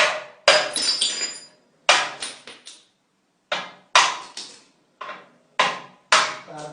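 A series of sharp, irregular knocks, as of a tool striking a hard fixture, about one to two a second. Each knock dies away quickly, and a few near the start ring briefly with a high metallic tone.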